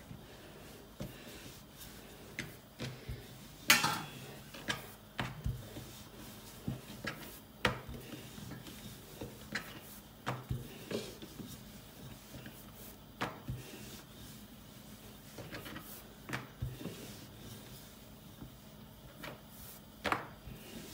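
Hands patting and pressing chapati dough flat on a cutting board: irregular soft taps and thumps, one or two a second, with a louder knock about four seconds in.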